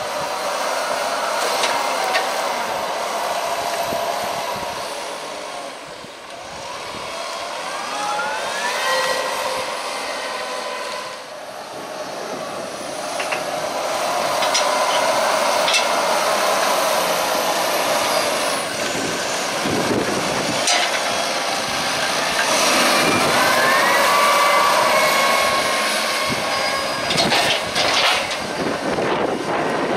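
Fendt 724 Vario tractor working under load as it buckrakes grass on a silage clamp, its engine and transmission whine rising in pitch twice as it revs up. A few sharp knocks come near the end.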